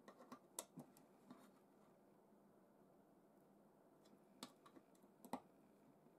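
Faint clicks and taps of small metal parts being handled as an M6 threaded insert nut and its bolt are fitted into a hole in a small wooden part held in a metal drill-press vise. There is a quick run of clicks in the first second or so, and a few more about four to five seconds in.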